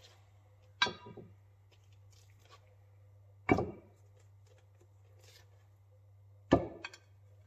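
Three sharp knocks about three seconds apart, each ringing briefly, the last followed at once by a second smaller knock, over a steady low hum.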